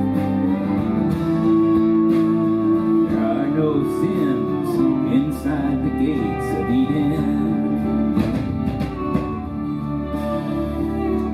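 Live folk music on stage: guitar with long held notes and a singing voice.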